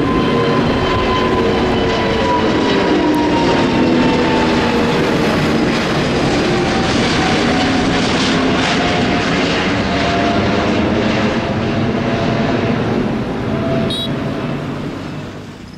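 Airbus A350's Rolls-Royce Trent XWB jet engines at takeoff power as the airliner climbs out overhead: a loud, steady jet noise with engine tones that slowly fall in pitch as it passes, fading near the end.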